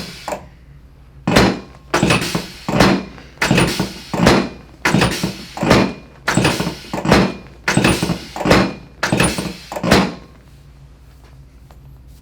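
Chiropractic drop table's hip section dropping under repeated thrusts: about a dozen sharp thunks, roughly one every 0.7 s, stopping near the end. It is a drop-table hip adjustment, with no joint popping.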